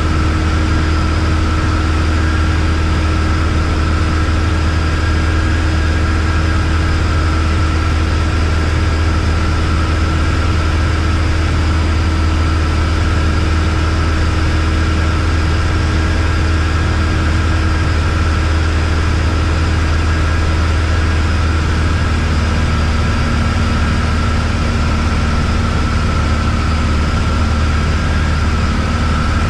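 Embraer Tupi's four-cylinder Lycoming piston engine and propeller droning steadily in flight, heard inside the cabin. One of the tones drops slightly about 22 seconds in.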